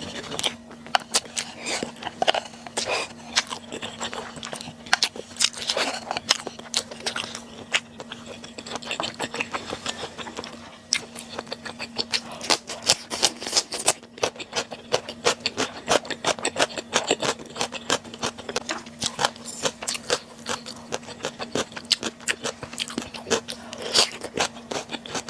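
Close-miked eating sounds of stir-fried webfoot octopus (jjukkumi bokkeum): irregular wet chewing, biting and mouth clicks with occasional utensil scrapes, over a faint steady hum.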